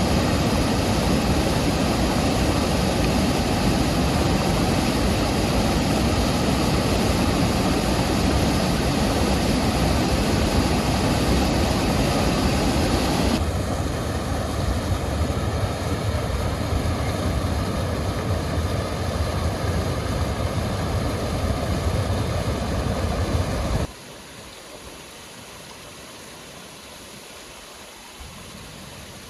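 Muddy flash-flood water rushing across a desert road and over a gravel bank, a steady, even rush of noise. It drops a little in level about halfway through and becomes much quieter about four-fifths of the way in.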